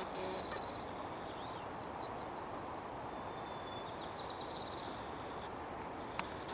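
A songbird singing twice, each song a held high whistled note running into a fast trill, over a steady low rushing background.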